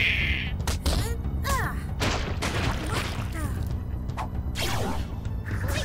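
Cartoon action soundtrack: background music with a steady low pulse, cut with several sudden whooshes and hits and a few short character vocal sounds.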